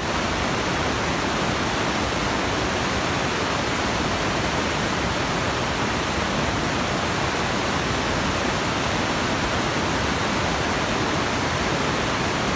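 Steady, even static hiss at all pitches, with a perfectly flat level. It starts and stops abruptly.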